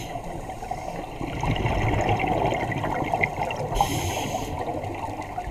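Scuba diver breathing through a regulator underwater: a bubbly rush of exhaled air, then a short hissing inhale about four seconds in.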